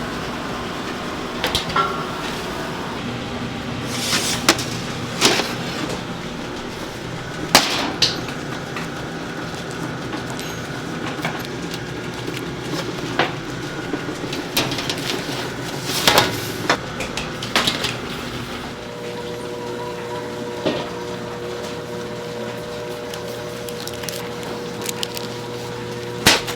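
Bakery kitchen work: utensils, bowls and trays knocking and clinking now and then over a steady machine hum. The hum changes to a higher steady tone about two-thirds of the way through.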